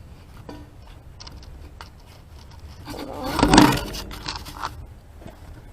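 Scraping and rustling handling sounds with a few light clicks, building to a louder scrape about three and a half seconds in.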